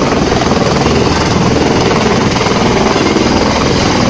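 Helicopter landing close by: loud, steady rotor and turbine noise with a fast, even chop from the blades.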